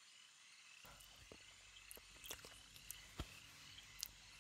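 Near silence: faint night ambience of chirping crickets, with a few soft ticks.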